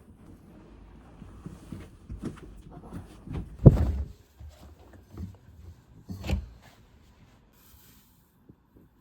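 Household handling noises: a run of knocks and low thumps, the loudest about three and a half seconds in and another just after six seconds, then quieter.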